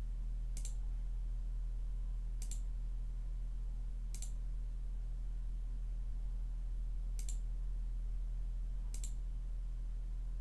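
Computer mouse clicking, five separate single clicks a second or two apart, over a steady low hum.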